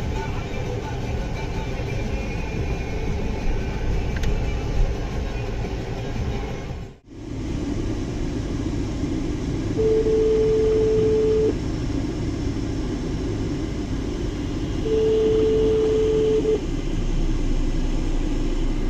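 Steady low vehicle rumble that breaks off briefly about seven seconds in, then resumes. Later come two long, steady, even-pitched beeps about five seconds apart.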